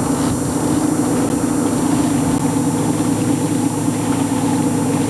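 Fishing boat's engine running steadily, a level hum that holds one pitch throughout.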